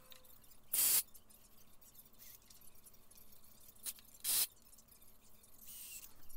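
Sped-up cordless drill and impact driver boring pilot holes and driving 3-inch drywall screws into 2x4 lumber, heard as two short harsh bursts, one about a second in and one past four seconds, with a faint high motor whine near the end.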